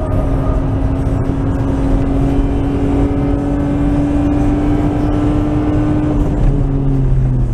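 Nissan Skyline R33's RB20E 2.0-litre straight-six engine, heard from on board, pulling hard down a straight with its note slowly rising in pitch. About six seconds in the note falls away to a lower pitch as the throttle comes off, with steady road and wind rumble throughout.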